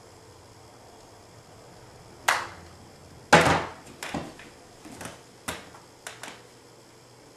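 Handling noise: about seven sharp clicks and knocks at uneven intervals, the loudest a heavier knock about three and a half seconds in.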